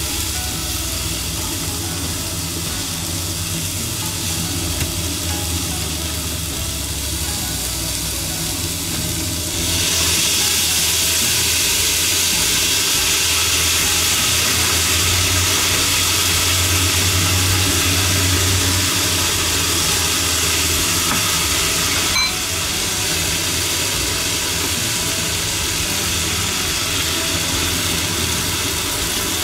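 Green pepper strips sizzling in a frying pan on a gas stove over a steady low hum. The hiss grows louder about ten seconds in and eases a little after about twenty-two seconds, with a single click.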